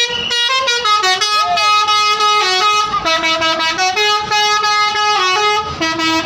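Tour bus 'telolet' multi-tone air horn playing a tune: several sustained tones sound together and step to new pitches every second or so, without a break.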